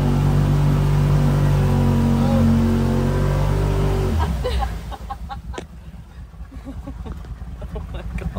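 Off-road side-by-side engine running steadily, then cutting off suddenly about four seconds in. A lower, uneven rumble with scattered small pops and blips follows.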